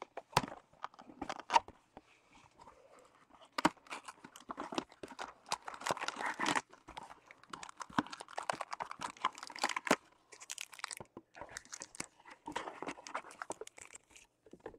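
Trading card pack wrappers being torn open and crinkled, with irregular crackling and short ticks as the packs are ripped and the cards pulled out.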